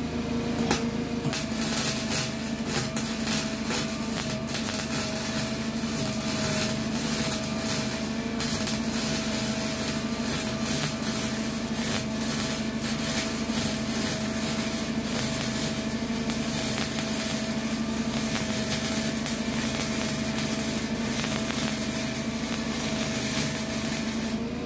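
A small 120-volt welder's arc crackling and popping steadily through one long weld bead on a bus floor patch. The popping and cracking comes from welding over rusty metal. It starts about a second in and stops just before the end.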